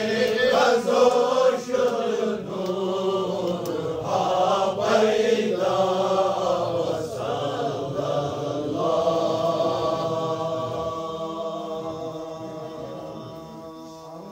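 A group of men chanting a Sufi devotional recitation in unison, the voices rising and falling together. About nine seconds in they settle on one long held note that slowly fades away.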